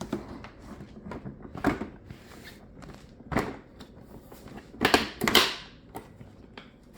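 Plastic high-chair legs being pressed down into the seat frame, giving several separate clicks and clunks as they lock into place.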